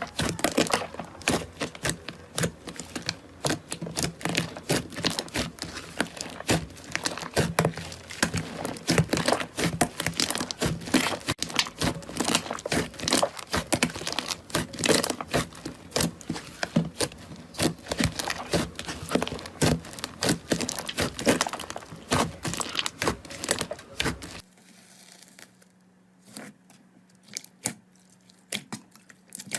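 Slime being squeezed and pressed by hand, giving a dense run of crackling, popping clicks. Near the end it drops suddenly to a much quieter stretch with only scattered clicks.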